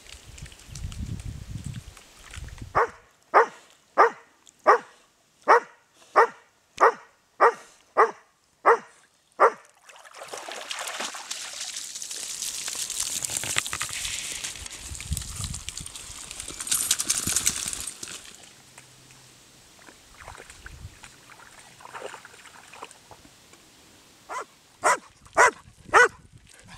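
A dog barking steadily, about a dozen barks at roughly one and a half a second. A rushing noise follows for several seconds, then a quicker run of barks near the end.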